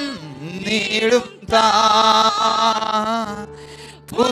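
Men singing a Malayalam Christian worship song in a long, drawn-out phrase over steady held keyboard chords. Near the end the voices drop away for a moment, leaving the keyboard.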